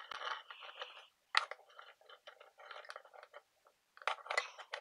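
Small clamp-on bench vise being handled and opened: irregular metal clicks and short scrapes from its sliding jaw and screw handle, sharpest about a second and a half in and again near the end.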